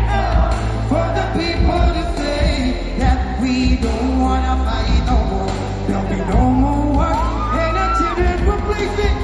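Male singer singing live with a band through a concert PA system, heard from the audience, with heavy bass under the sung melody.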